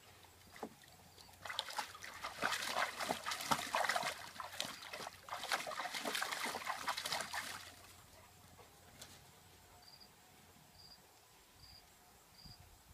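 Black Labrador splashing about in a shallow plastic kiddie pool of water, in two spells of a few seconds each starting about a second and a half in. After that it goes quiet apart from faint, short high chirps repeating about once a second.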